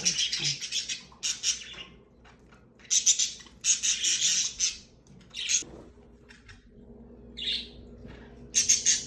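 Fischer's lovebirds giving harsh, raspy chirps in about seven short bouts, with quieter gaps between them.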